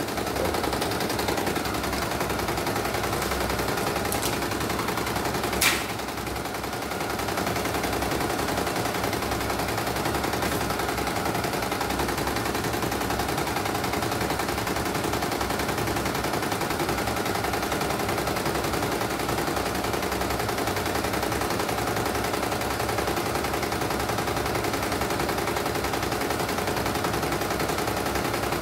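CNY E900 computerized embroidery machine stitching at speed: a steady, rapid clatter of needle strokes. There is one sharp click about six seconds in, then a brief dip before the stitching goes on. The machine is running normally after a mainboard replacement.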